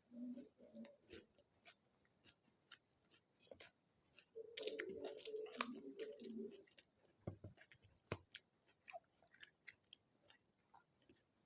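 Close-miked chewing of panipuri: crisp fried puri shells crunching between the teeth with wet mouth sounds, and a louder bite and chew about four and a half seconds in.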